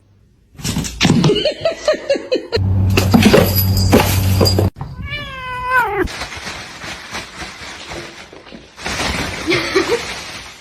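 Cat yowling and meowing: a run of quick cries, then one long meow that falls in pitch about five seconds in, and a shorter cry near the end.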